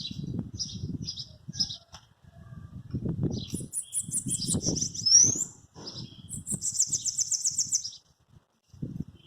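Bananaquits singing: high thin chip notes, then fast buzzy trills with a quick rising sweep between about three and eight seconds in. Low fluttering thumps of wings run underneath.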